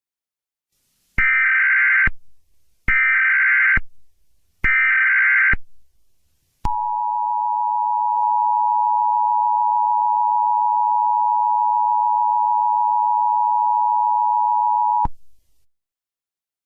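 Emergency Alert System SAME header: three short, harsh data bursts about a second each, then the steady two-tone EAS attention signal held for about eight seconds before it cuts off abruptly.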